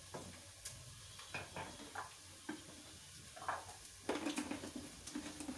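Light knocks and clicks of a bowl and a plastic cooking-oil bottle being handled on a kitchen counter, with a louder clatter about four seconds in.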